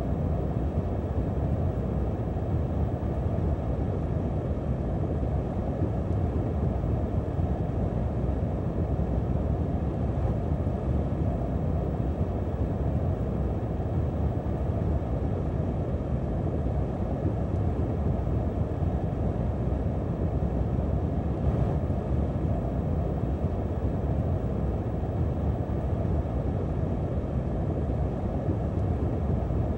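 Wind sound effect: a steady, low rushing wind that holds the same level throughout, without gusts or breaks.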